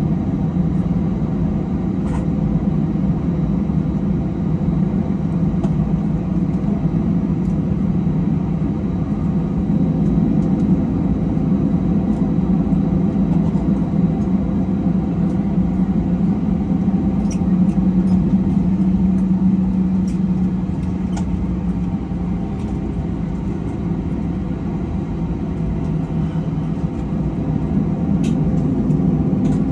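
Steady low rumble inside an airliner cabin as the jet taxis after landing, with its engines running. A few faint clicks and rattles come through here and there.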